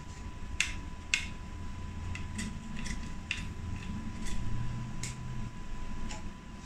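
Metal hand scraper scratching loosened glue residue off an iPhone 8 Plus frame in short, sharp strokes, about eight of them, spaced irregularly. The residue has been softened by glue remover and laser and is coming off in flakes. Under the strokes runs a low steady hum with a faint steady high tone.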